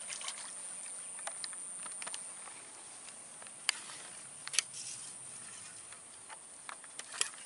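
Steady high-pitched buzzing of insects in swampy grass, with a few sharp clicks and taps, the loudest about four and a half seconds in and near the end.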